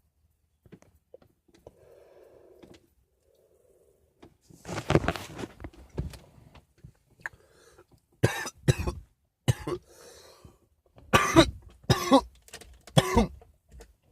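A man coughing hard in several separate fits, with throat clearing, after drawing on a joint: smoke irritating his throat and lungs.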